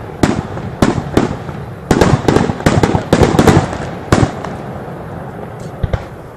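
Aerial firework shells bursting in a rapid volley, a dozen or so sharp bangs in close succession. The volley thins out after about four seconds, leaving two fainter pops near the end.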